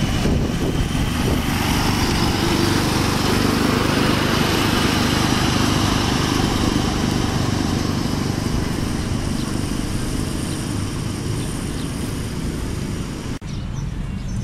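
A small engine on a ride-on miniature railway locomotive runs steadily as the train passes close by, then fades as it draws away down the track. The sound cuts off abruptly near the end.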